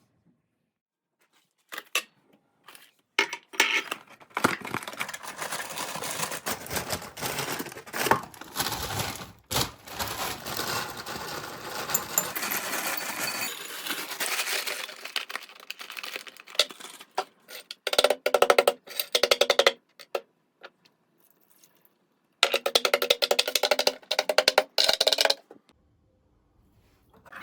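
Kitchen utensil sounds during breakfast preparation: a long stretch of dense crackling and clicking, then two bursts of fast, evenly repeated tapping, about one and a half and three seconds long.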